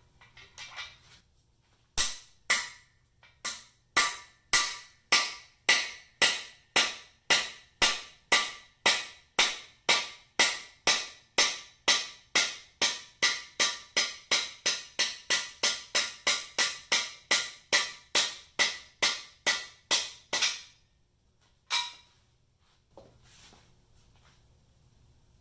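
Hammer blows on the driver of a cam bearing remover/installer tool, driving the rear cam bearing out of a 305 small-block Chevy block: a long, steady run of sharp metallic strikes, about two to three a second and slowly quickening, that stops about twenty seconds in, followed by one last blow.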